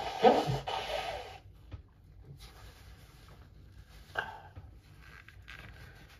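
A person blowing their nose, congested with a head cold: one strong noisy blow lasting about a second and a half, followed by a few faint small sounds.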